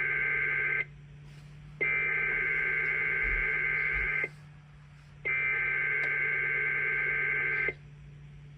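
Emergency Alert System SAME header, a screechy data tone sent as three identical bursts about a second apart: the first ends under a second in, the second runs from about 2 to 4 seconds in, and the third from about 5 to 8 seconds in. It is the coded start of a Required Weekly Test heard over radio, with a faint steady hum underneath.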